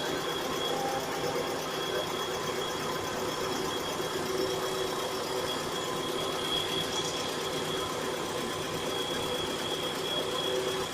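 Mitsubishi Carisma GDI's 1.8-litre four-cylinder direct-injection engine running steadily with a knocking noise, alongside a steady high whine. The knocking has been present at every start since the timing belt and A/C belt were replaced, and the cause is undiagnosed.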